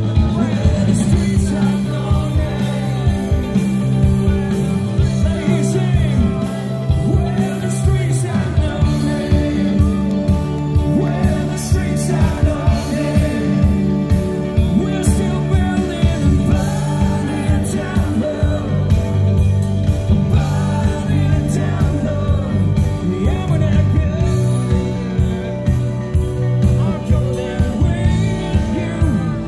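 A live band playing amplified through a PA, with electric guitar, bass and a steady drum beat under a singer.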